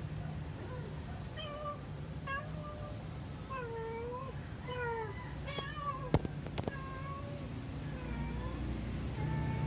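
Domestic cat giving a run of short, repeated meows, many arching up and down in pitch. Two sharp clicks come about six seconds in, over a steady low hum.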